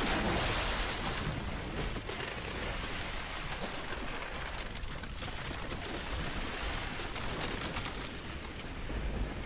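Rough ocean surf breaking and churning: a steady rushing of water, loudest in the first second as a wave breaks against the shore.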